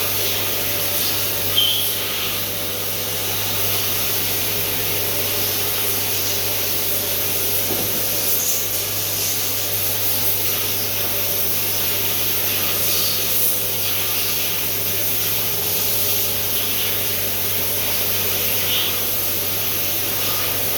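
Doosan CNC machine running steadily: a constant low hum with a few steady tones and a broad hiss over it. There is a sharp click about a second and a half in, and a few faint ticks.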